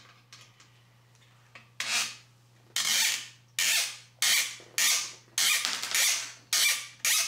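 Hex cap screws being turned out of the Prusa MK3S display's plastic cover with a hex key: a run of short creaking, rubbing strokes, about two a second, starting about two seconds in.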